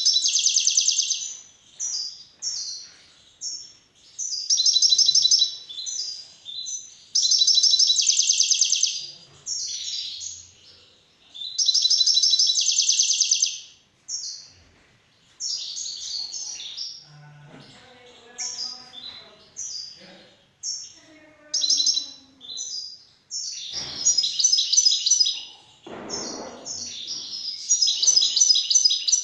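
European goldfinch singing: phrases of fast, high twittering notes, each a second or two long, with short pauses between.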